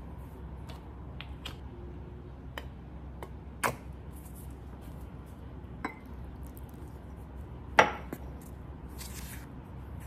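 Kitchenware knocking against a bowl while a flour dough is mixed: scattered light clicks and taps, with two louder knocks, the louder one about eight seconds in. A short soft rustle follows near the end as a wooden spoon starts stirring the flour.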